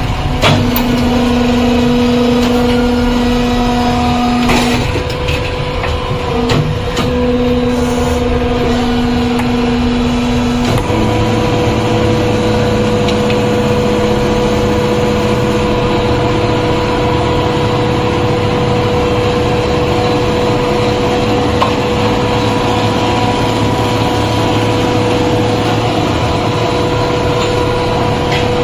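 Plastic injection-moulding machine running with a steady mechanical hum. Its note shifts several times in the first eleven or so seconds, then holds steady.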